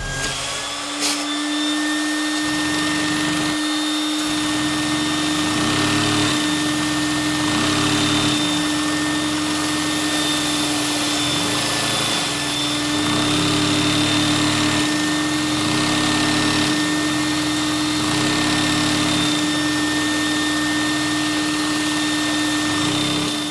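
Vacuum cleaner running steadily, drawing air through a LEGO vacuum engine (4x4 piston with an SVS valve) whose speed is being varied with a hand-worked throttle. A lower sound swells and fades every couple of seconds under the vacuum's steady hum.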